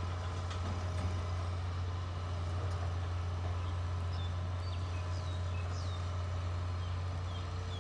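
Steady low drone of heavy diesel machinery running in a railway construction yard, with a few faint high chirps around the middle.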